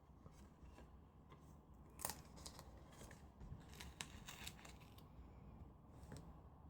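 Faint handling of card stock: scattered light clicks and rustles of paper being moved and pressed, the sharpest snaps about two seconds in and again at four seconds.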